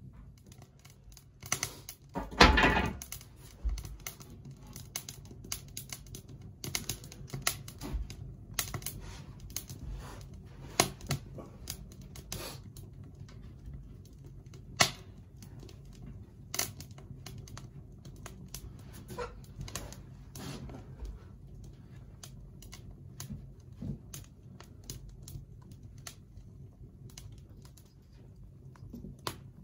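Irregular light clicks and knocks, with one louder clatter about two and a half seconds in, over a low steady hum.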